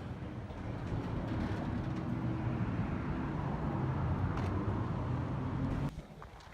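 Steady motor drone that cuts off abruptly about six seconds in.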